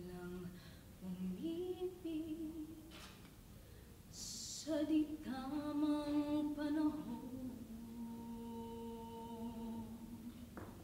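A woman singing a slow ballad a cappella, in phrases with held notes, ending on a long steady note near the end.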